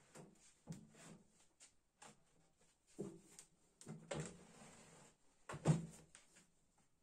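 A wooden board being fitted into the base of a range-hood spray booth: a string of irregular knocks and short scrapes as it is shifted and bumped into place, the loudest knock about five and a half seconds in.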